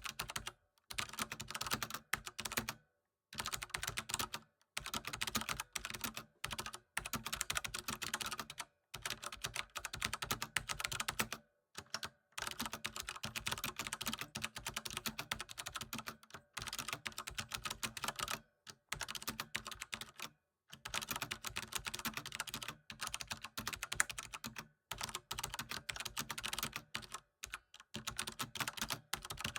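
Typing on a computer keyboard: fast, continuous runs of keystrokes lasting a few seconds each, broken by short pauses.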